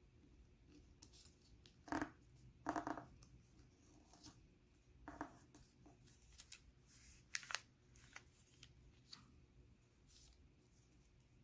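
Origami paper rustling and crinkling as it is folded and creased by hand, in a few short, faint bursts, the loudest about two and three seconds in.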